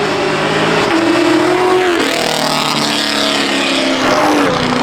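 Car engine revving loudly as it pulls away under acceleration, its pitch holding and then falling about two seconds in and again near the end, over a rush of exhaust and road noise.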